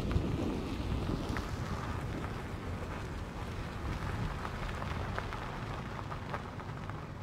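Vehicle rolling slowly along a dirt road: a steady low rumble of tyres and running gear, with a few scattered small ticks.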